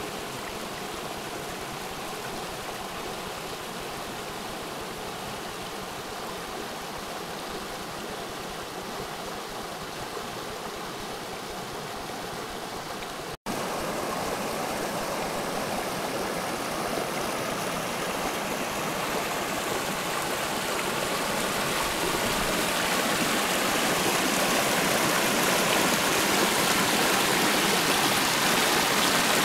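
Water of a small fell stream rushing over stones in shallow rapids, a steady rush. It breaks off for an instant about halfway, comes back louder, and swells slowly toward the end.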